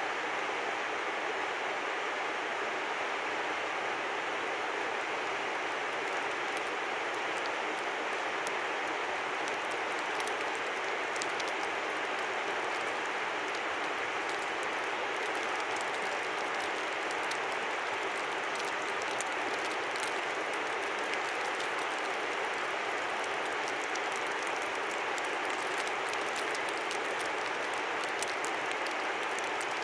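River running steadily: an even rushing of water, with many tiny ticks flecking it in the high range.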